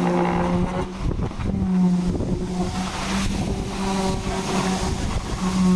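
Concrete pump running while concrete is fed through its hose into wall formwork: a loud, steady hum that drops away and comes back several times.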